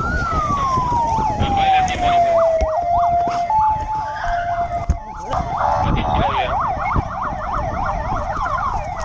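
Police sirens: a wail that peaks at the start and slides slowly down, then a held steady note, then a fast yelp from about five seconds in, with more than one siren overlapping over a low rumble.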